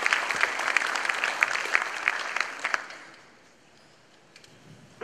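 Audience applauding, fading out about three seconds in.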